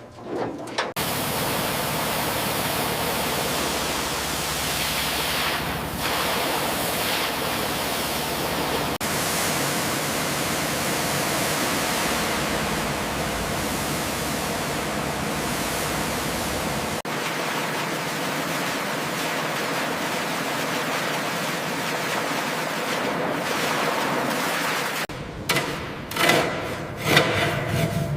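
Pressure washer spraying, a steady loud hiss of the water jet that breaks off abruptly twice and starts again. Near the end the spraying stops and short scraping, rubbing sounds follow.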